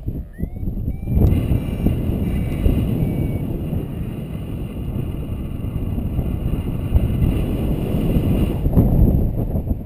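Wind rushing over the microphone of a paraglider in fast glide, a loud, gusty rumble that picks up sharply about a second in.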